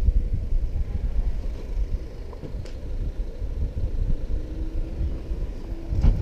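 Outdoor city street ambience: an uneven low rumble, with a faint hum that rises slightly in the second half and a couple of light clicks.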